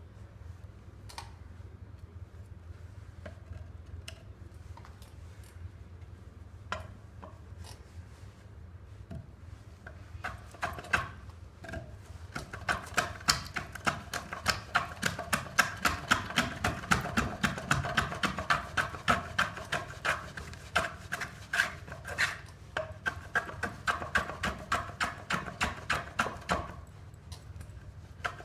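A pine log being worked with a hand woodworking tool: scattered single knocks at first, then from about ten seconds in a fast, even run of sharp wooden knocks, roughly three a second, each with a short ringing tone, which stops shortly before the end.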